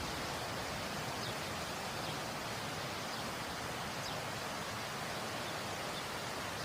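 Steady rushing of a waterfall, an even unbroken noise, with a few faint short high ticks above it.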